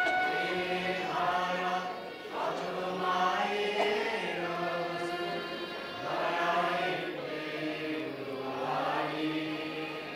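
A children's choir singing together on long, held notes.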